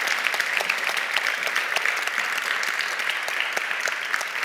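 Large audience applauding steadily: a dense patter of many hands clapping, easing off slightly near the end.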